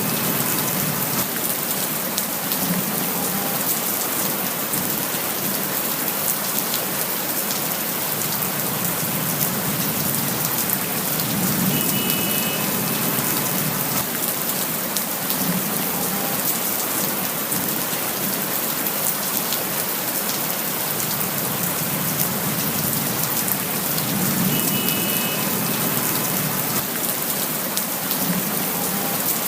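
Steady rain falling, a dense even hiss of drops hitting surfaces. A faint low swell and a brief faint tone come back about every twelve seconds, as the recording repeats in a loop.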